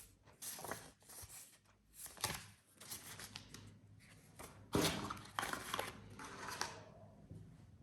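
Handling noise from unboxing a smartphone: irregular rustles, light clicks and scrapes of paper, cardboard and the phone being handled, with a louder scrape or knock about five seconds in.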